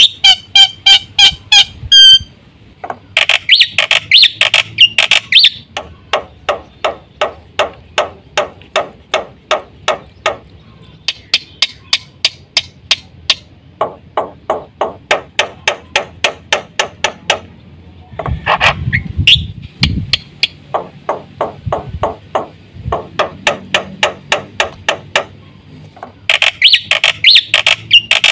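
Black-winged myna (jalak putih) singing: a long run of loud, sharp notes repeated about three times a second, broken three times by bursts of rapid chattering trills.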